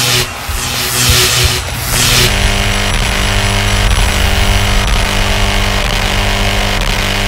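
Produced intro soundtrack of sound effects. About two rushing whooshes fill the first two seconds, then a steady, low, buzzing drone at one unchanging pitch runs on with faint regular ticks.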